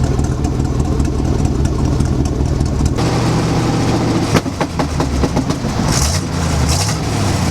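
A V8 dump truck engine runs through freshly fitted glasspack mufflers, giving a deep, steady exhaust note. The sound changes about three seconds in, and near the end the pitch rises and falls briefly.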